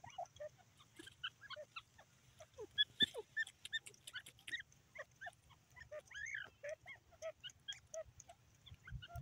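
Birds calling: many short chirps at varied pitch, scattered throughout. The calls are loudest in a cluster about three seconds in, and one longer rising-and-falling note comes about six seconds in.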